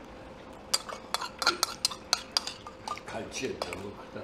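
Metal spoon clinking and scraping against a small bowl while eating: an irregular run of light clicks that starts about a second in.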